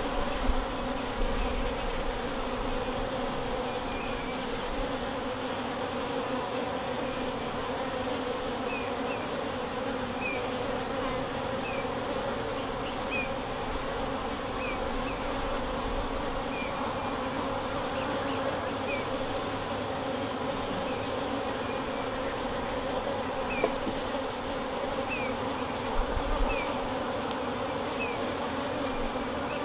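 A honeybee colony in an opened hive buzzing steadily, the dense low hum of many wings.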